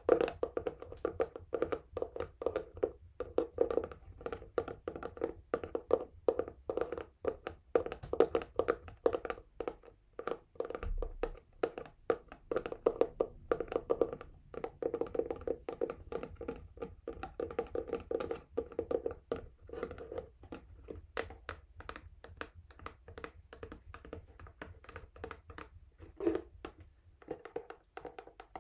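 Fingernails tapping and scratching rapidly on a textured cardboard box, a dense run of small clicks with a couple of brief pauses.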